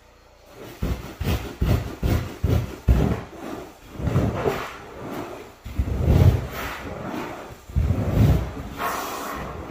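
Irregular rubbing and thumping strokes, roughly one a second, each a low thump with a scraping swell.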